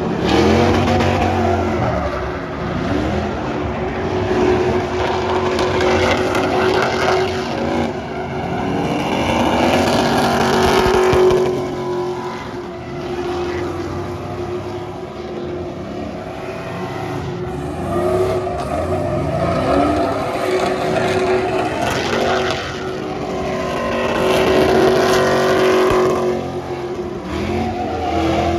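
Truck engine revving hard, held at high revs for long stretches and dropping then climbing again in between, over a steady rushing noise.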